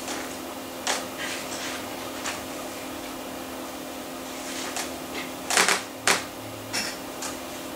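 Macintosh Plus SCSI hard drive seeking during a drive test: irregular clicks and ticks from the moving heads, louder in a cluster about two thirds of the way through, over a steady low hum.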